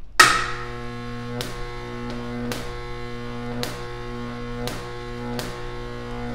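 Jacob's ladder on a high-voltage transformer: the arc strikes with a snap, then buzzes with a steady electrical hum as it climbs the wires, breaking and re-striking about once a second.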